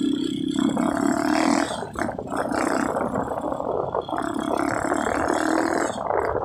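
Small motorcycle engine running while riding, under a steady rushing noise from the wind. The engine's steady hum fades about two seconds in, comes back later, and the level dips briefly twice.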